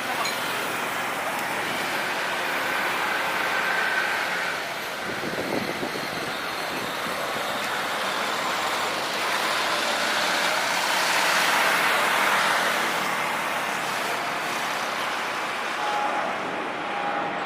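Jet airliner engine noise: a steady rushing sound that grows louder about eleven seconds in.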